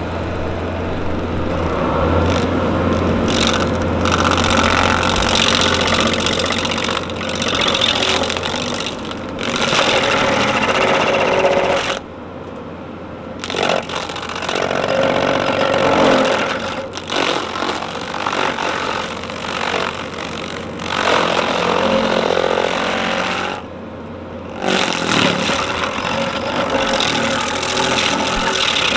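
Bobcat skid steer running hard with an Arbor Wolf stump grinder attachment working, in several cut-together clips; the sound drops away briefly twice.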